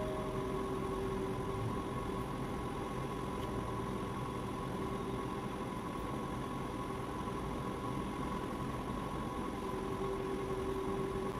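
Background music: a soft ambient drone of long held notes over a low hum, with no beat.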